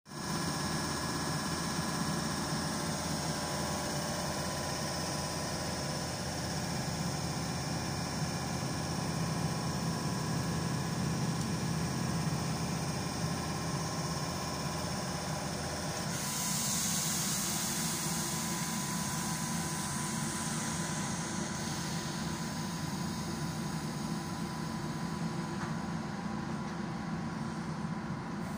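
Electric locomotive standing at the platform with its equipment running, giving a steady hum and whir. A high hiss joins a little past halfway through and eases off a few seconds later.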